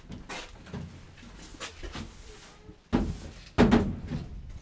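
Light rustling and clicks, then two heavy knocks about three seconds in, half a second apart, from work at a fish-cleaning counter.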